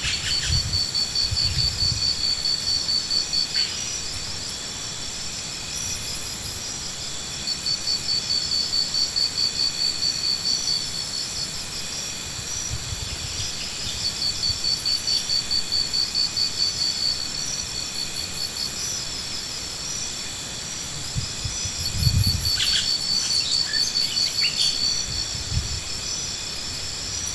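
Insects calling: four trains of rapid, high-pitched pulsed chirps, each lasting a few seconds, over a steady high insect drone. A dull thump comes late on.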